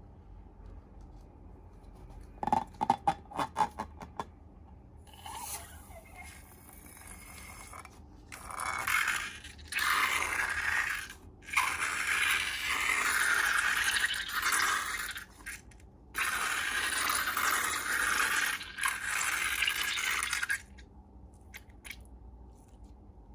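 Slime-making handling sounds: a quick run of clicks, then long stretches of scraping, broken by short pauses, that stop near the end.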